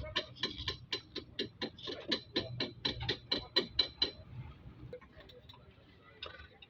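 Ratchet clicking rapidly and evenly, about five clicks a second, for about four seconds, then a few faint clicks near the end.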